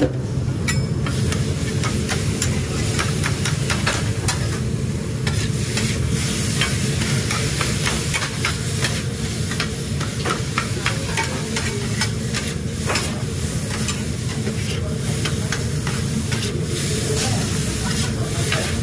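Two metal spatulas chopping and scraping meat, onions and peppers on a hot flat-top griddle: quick, irregular clicks and scrapes of steel on steel over steady sizzling, with a constant low hum underneath.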